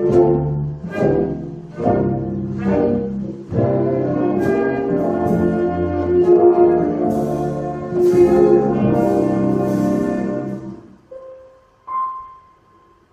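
A big band with brass, saxophones, piano, double bass and drum kit playing full chords with punchy accented hits. About eleven seconds in the band drops away, leaving a few soft single held notes.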